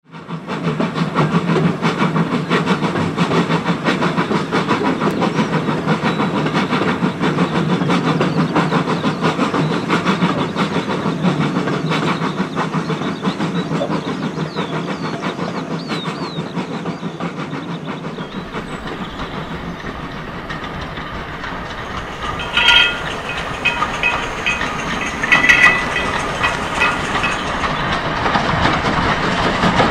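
Archive recording of a steam-hauled train on the move, with a steady rapid clatter of wheels and rolling stock. The clatter eases after about eighteen seconds, then two brief shrill squeals come about three seconds apart before it builds again near the end.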